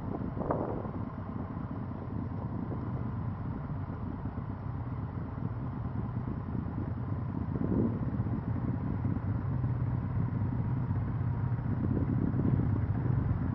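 Motorcycle engines running steadily, a low hum that grows a little louder in the second half.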